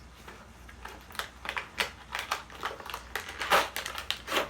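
Packaging being handled and opened by hand: a run of irregular crinkles, rips and scrapes, busiest in the second half.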